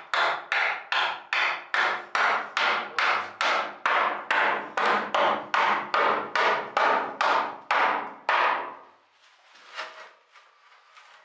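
A stone used as a hammer striking an old rusty nail, a steady run of about two dozen sharp knocks at roughly three a second that stops after about eight and a half seconds.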